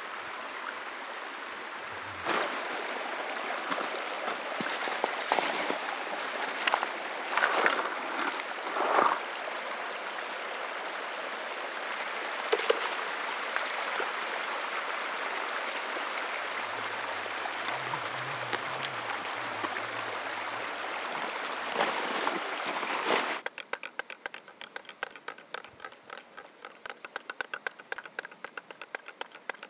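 Glacial meltwater stream running fast over ice and rock, a steady rush with a few louder splashes. It cuts off suddenly about 23 seconds in, and a much quieter rapid ticking follows.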